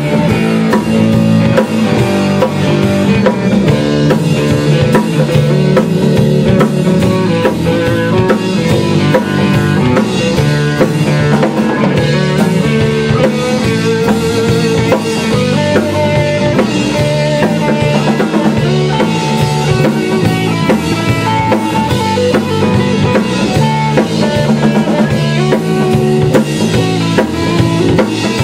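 A rock band playing live: drum kit, electric guitar and bass guitar together in a steady-beat instrumental passage, with no vocals.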